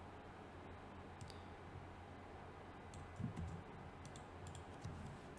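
Faint, irregular clicks of a computer mouse, several close together in the second half, over a low steady hum.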